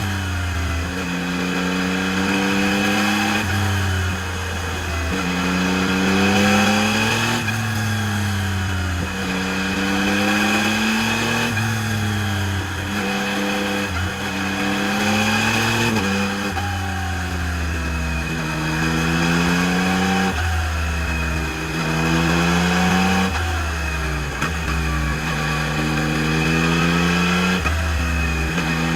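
Yamaha MT-09 SP's inline three-cylinder engine through its stock exhaust, accelerating again and again: the pitch climbs for two to four seconds, then drops sharply at each gear change.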